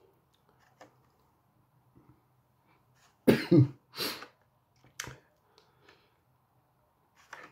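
A person coughs twice in quick succession a little before the middle, then there is a short sharp click about a second later, against a faint low hum.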